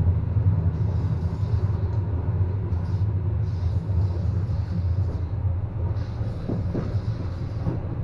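Aerosol spray-paint can hissing in about four bursts of a second or so each as a tag is sprayed. Underneath runs the steady low rumble of the moving train car.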